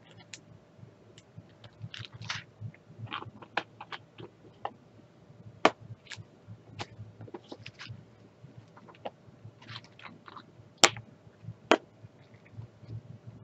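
Irregular small plastic clicks, taps and crinkles from handling diamond-painting drills: a small plastic bag of drills, an orange plastic drill tray and small clear plastic storage jars being picked up and set down. A few sharper clicks stand out, the loudest late on.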